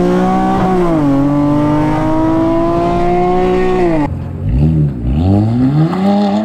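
Tuned Infiniti Q60's engine under hard acceleration. The revs climb, drop at a gear change about a second in, then climb steadily for about three seconds. The throttle then closes and the revs swing down and back up.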